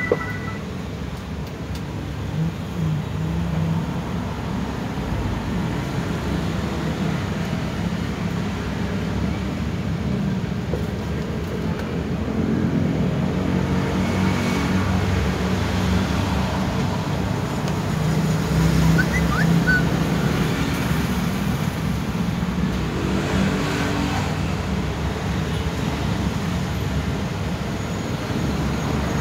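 Steady low background rumble that swells a little in the middle stretch and eases again.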